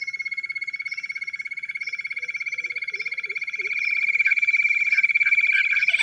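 Jungle bush quail calling: a rapid pulsed trill held on one high pitch, growing louder about four seconds in.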